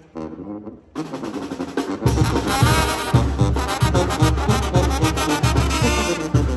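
Oaxacan brass band (banda de viento) playing, with trumpets and trombones carrying the tune. The music grows abruptly fuller about a second in, and a steady low bass beat comes in about two seconds in.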